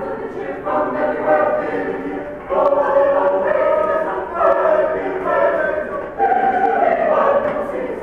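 Mixed choir of men and women singing in parts, in phrases of long held notes with a fresh entry about every two seconds.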